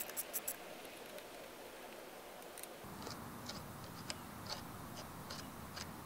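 Light metallic clicks and ticks of a hand tool working the crank bolt and spindle end of a bicycle's crank, a quick cluster at first, then sparser ticks from about halfway. A low steady hum joins about halfway.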